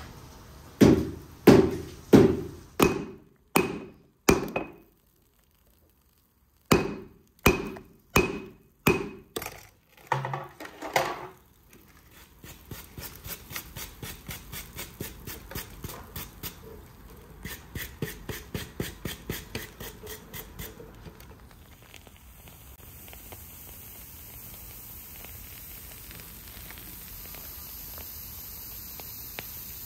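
Hand hammer forging a red-hot billet of forge-welded nails on an anvil. First come heavy, ringing blows about two a second, broken by a silent gap of a couple of seconds, then a longer run of quicker, lighter blows about three a second. The hammering stops about two-thirds of the way in and a steady hiss follows.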